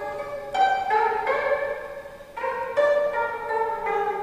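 25-string gayageum (Korean zither) played solo: a run of plucked notes that ring on, each set of pitches fading before the next is struck, with a brief lull about two seconds in.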